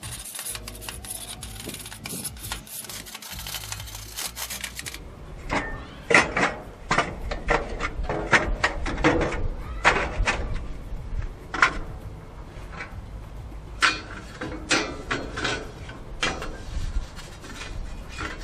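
A metal scraper rasping over a propane grill's steel flavorizer bars for about the first five seconds. Then come irregular clanks and knocks as the bars are handled and lifted out.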